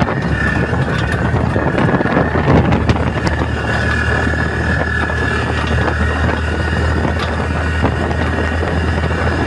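Vehicle engine and road noise heard from riding on the back of the vehicle over a rough dirt road, with a steady high whine, scattered knocks and wind on the microphone.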